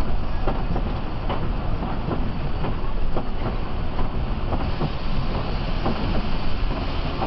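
Steady engine and road noise inside the cabin of a Mercedes-Benz OH 1526 bus driving on a wet road, with many short ticks and rattles.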